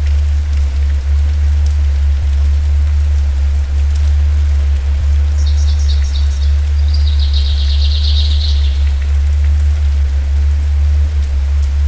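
Steady rain falling on leaves and stone over a constant deep rumble. About halfway through, a bird gives a quick high trill of rapid repeated notes lasting a few seconds.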